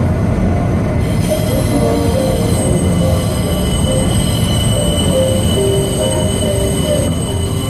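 New York City subway Q train running at speed, heard from inside the car: a steady rumble of wheels on track. From about a second in, a steady high-pitched wheel squeal joins and holds.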